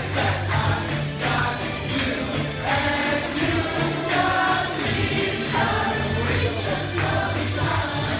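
A group of voices singing together over a backing track with a steady bass line and a regular beat.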